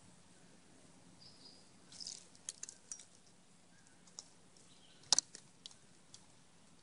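Eastern gray squirrel rummaging in and cracking bird seed: a scatter of sharp clicks and crunches, a cluster about two seconds in and the loudest pair a little after five seconds.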